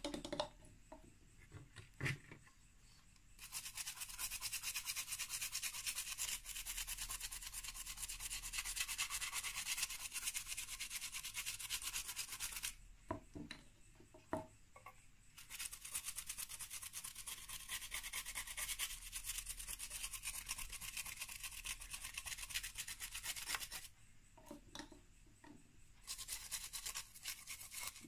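A small brush scrubbing thinner over the freshly soldered side of a circuit board in rapid short strokes: two long spells of scrubbing with a pause between, starting again near the end. In the pauses there are a few light clicks as the brush is dipped back into the thinner bottle.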